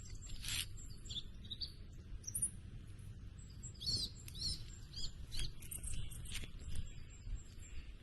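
Birds chirping and calling in many short, quick notes that glide up and down, busiest around the middle, over a low steady background rumble.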